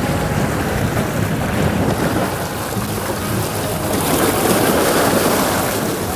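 Loud, steady rush of wind buffeting the microphone, with a faint low steady hum underneath.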